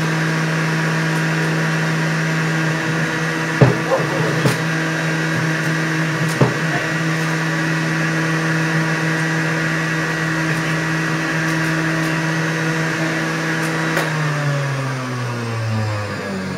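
Juiceman centrifugal juicer's motor running with a steady hum, with a few sharp knocks around four and six seconds in as produce is pushed down the feed chute. About fourteen seconds in the motor is switched off and spins down, its pitch falling.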